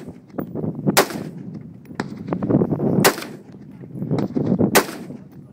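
AR-15-style semi-automatic rifle fired three times, single shots about two seconds apart.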